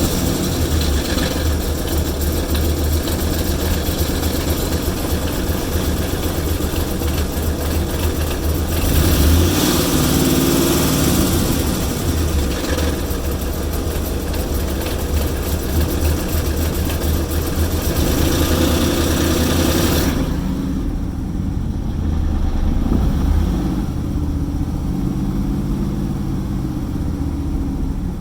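Engine running at a rough idle, a steady low rumble with a fluttering, uneven beat. About two-thirds of the way through, the higher hiss above the rumble drops away suddenly, leaving only the low engine note.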